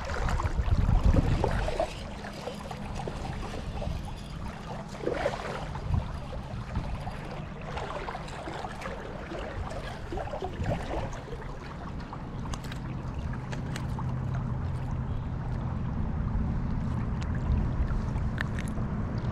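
Shallow creek water running and gurgling around a wading angler, over a steady low rumble, with a few light ticks in the second half.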